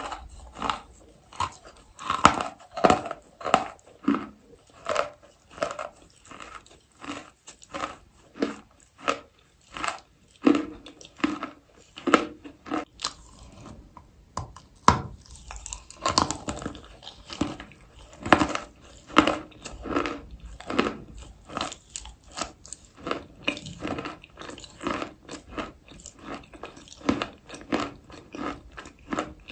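Close-up chewing of chalk: steady crunching, roughly two to three crunches a second, with some louder bites.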